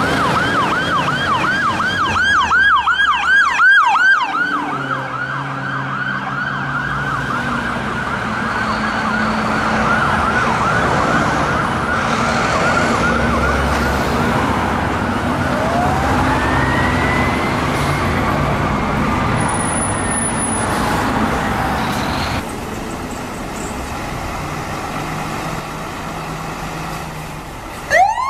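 Fire engine siren in a rapid yelp, loud at first and then fainter as the truck moves away, with engine and traffic noise underneath. A slower rising and falling wail comes in later, and near the end a loud new siren wail starts.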